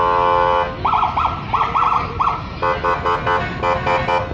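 Parade emergency vehicle sounding its warning devices: a steady blaring horn tone that cuts off under a second in, then a run of about five quick rising siren whoops, then rapid pulsed horn blasts.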